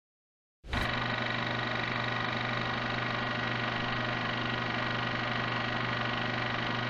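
Lawnmower's small petrol engine running at a steady speed. It starts abruptly about half a second in.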